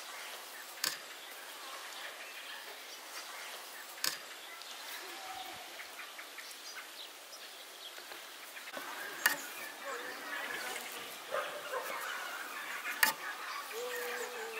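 A few sharp clicks, a few seconds apart, of a metal spoon against the wooden board and dough as mashed-potato filling is dropped onto dough squares. Under them is a faint rural background with occasional distant bird calls.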